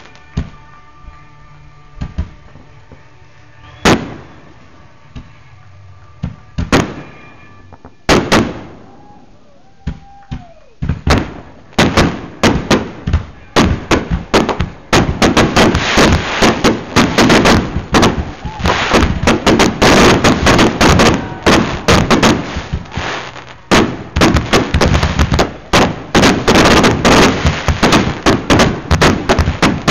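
Aerial fireworks going off. A few scattered bangs come first, then from about eleven seconds in a rapid, continuous barrage of bangs and crackling.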